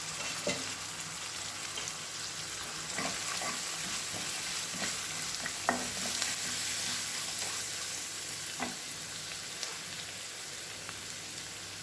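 Chopped onions with green chillies and curry leaves frying in oil in a pan, a steady sizzle. A spatula knocks and scrapes against the pan now and then as they are stirred.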